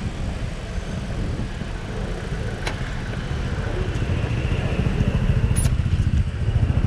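City street traffic heard from a moving bicycle: a steady low rumble of road and wind noise on the microphone, with a motor scooter's engine running close alongside, getting a little louder in the second half. A single sharp click sounds about two and a half seconds in.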